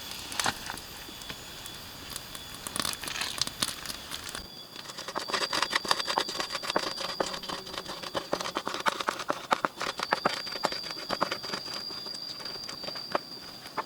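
Food frying in a pan, a dense irregular sizzling crackle that gets busier about four seconds in. A steady high thin tone runs in the background for much of the second half.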